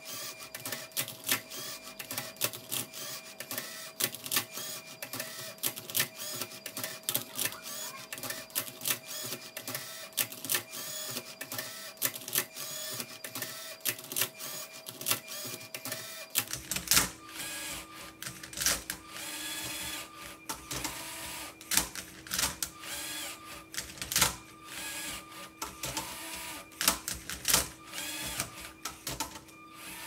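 LEGO Spike Prime robot solving a Rubik's Cube: its motors whir in short runs while the plastic flipper arm and turntable clack, tipping and turning the cube in a fast, irregular series of clicks and knocks.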